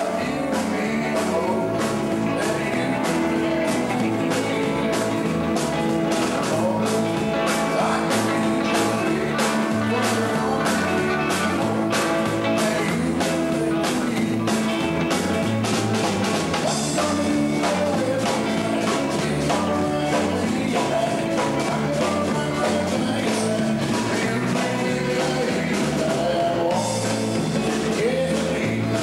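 Live rock-and-roll band playing: electric guitars over a steady drum beat, with a man singing into the microphone.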